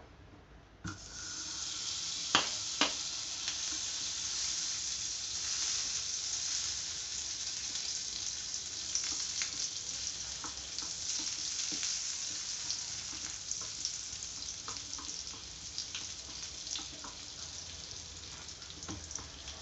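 Butter sizzling as it melts and foams in a hot nonstick frying pan, starting suddenly about a second in and carrying on steadily. A spatula stirring it makes scattered clicks against the pan, two sharper taps about two and a half seconds in.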